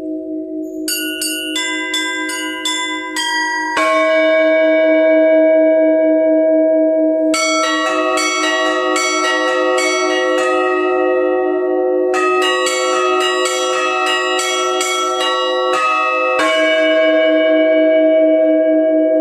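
Orthodox church bells ringing an Easter peal. Deep bells hum on steadily underneath while small high bells are struck in quick rhythmic patterns, with a heavier stroke about four seconds in, again at about seven seconds, and near the end.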